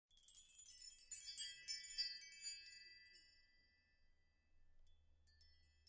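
A sparkling logo-intro chime effect: a quick flurry of high, tinkling bell-like notes that fades out about three seconds in.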